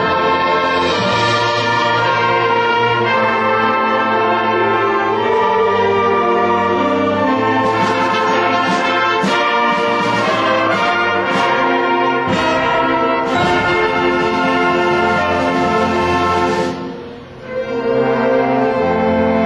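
A middle school concert band plays, with brass and woodwinds holding sustained chords. There is a run of percussion strokes in the middle. Near the end the sound drops away briefly, then the full band comes back in.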